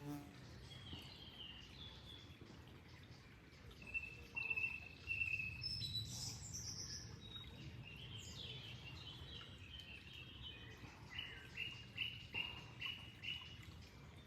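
Small birds singing and calling in short, high repeated notes, with a run of about six quick notes near the end, over a faint low steady rush.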